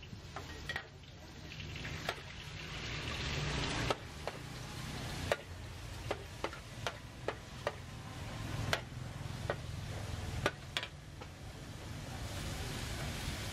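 Beef stir-frying in a hot oiled wok: a steady sizzle, with a metal spatula striking and scraping the pan in sharp, irregular clinks over a steady low rumble.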